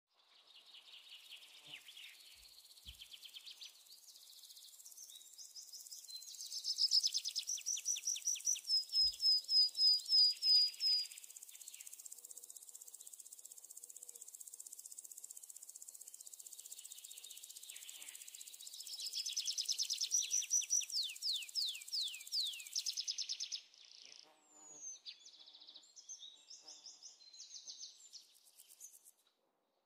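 Birds chirping and trilling over a high, steady insect drone, with rapid repeated chirp phrases that grow loud twice. The drone cuts off suddenly about three quarters of the way through.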